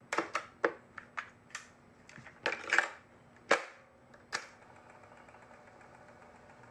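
A series of about ten sharp clicks and knocks at uneven intervals, some with a brief ringing tail, stopping after about four and a half seconds and leaving only a faint steady hum.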